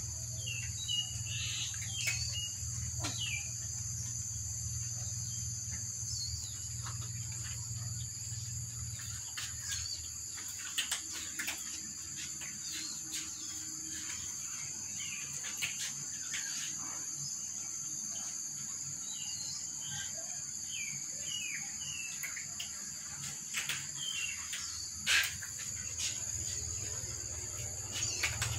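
Steady high-pitched chorus of crickets, with scattered sharp clicks of cats crunching dry kibble and a few short chirps.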